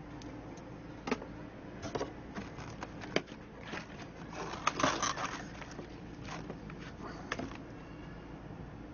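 Scattered light clicks, knocks and scrapes of hard cast-resin orgonite pieces being handled and popped out of a silicone mold, busiest about halfway through, over a faint steady low hum.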